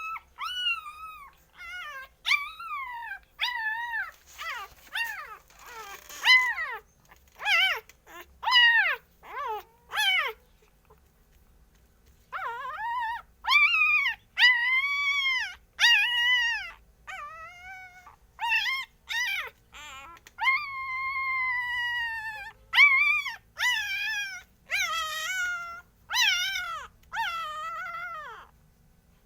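Hungry puppies whining and crying in a long run of short, high-pitched, rising-and-falling cries, with one longer drawn-out whine past the middle and a brief pause before the halfway point.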